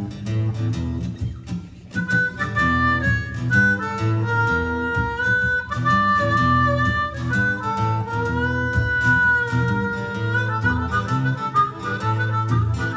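Blues harmonica solo over acoustic guitar accompaniment. The harmonica comes in about two seconds in and plays long held notes.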